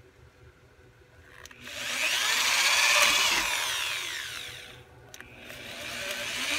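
Corded electric drill running as its bit bores through a flattened aluminum bottle into the wood beneath. It speeds up about a second and a half in, runs for about three seconds, slows and stops, then starts up again near the end.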